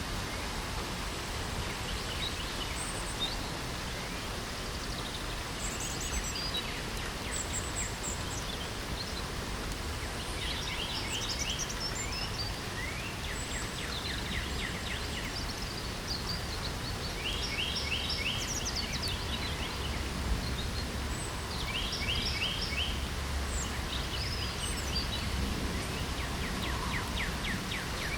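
Steady rain hiss with birds singing over it: short bursts of quick, repeated chirping notes come back every few seconds, along with a few thin, high chirps.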